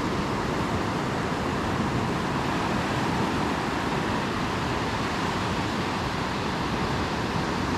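A steady wash of beach surf and wind noise on the microphone, an even rush with no distinct events.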